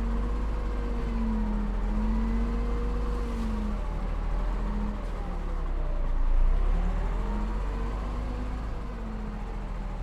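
Diesel engine of heavy earthmoving equipment running with a deep rumble, its engine speed rising and falling repeatedly as it works.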